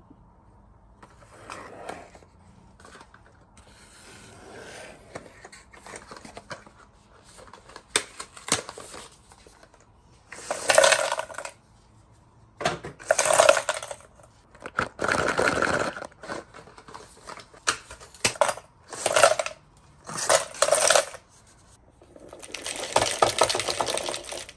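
Aluminium Nespresso coffee capsules clattering into a clear acrylic storage box, poured in a series of short cascades of about a second each. The pours get louder and come closer together in the second half, with quieter handling sounds before them.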